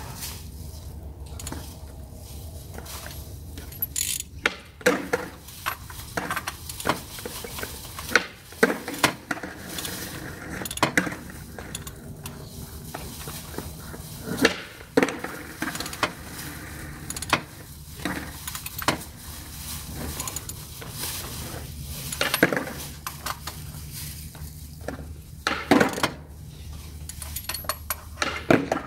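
Metal hand tools and parts clinking and knocking under a car, with irregular sharp clicks through the whole stretch over a steady low hum.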